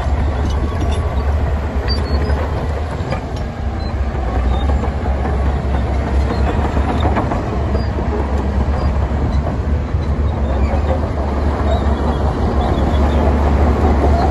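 Heavy diesel earthmoving machinery running steadily: a deep, even engine drone with clatter over it.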